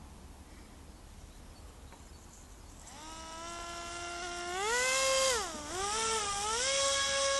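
RC Zagi flying wing's motor and propeller buzzing, starting about three seconds in. The pitch climbs, dips sharply, then climbs again and holds.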